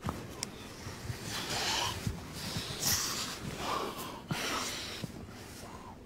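Two people kissing: breathing heavily in a run of breaths, with a few soft lip clicks.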